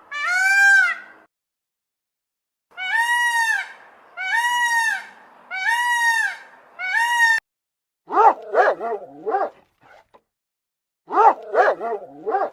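High-pitched animal cries. First comes a drawn-out call, then four whining cries, each rising and falling over about a second, then two quick runs of short yips near the end.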